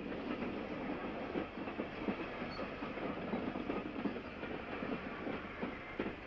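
Steam-hauled passenger train running along the line, with its wheels and carriages giving a steady, irregular clatter of many small knocks on the track.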